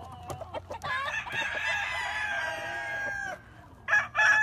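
Leiper Hatch gamecock crowing: after a few short clucks, one long crow held for about two and a half seconds, and a second crow begins near the end.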